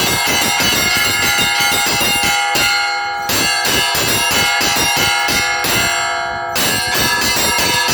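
Russian Orthodox church bells rung together in a fast, dense pattern of strikes, many bells ringing at once. Twice the small high bells drop out briefly while the lower bells carry on, then come back in.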